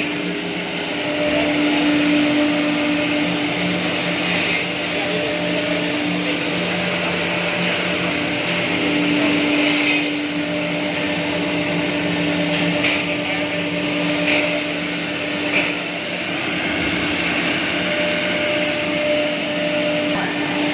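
CNC wood router with three spindles running: a steady spindle whine over a continuous hiss, with a few brief louder moments.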